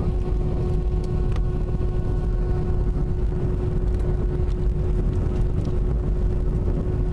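Cabin noise of an Airbus A320 taxiing: a steady low rumble of the jet engines and the moving airframe, with a steady hum over it.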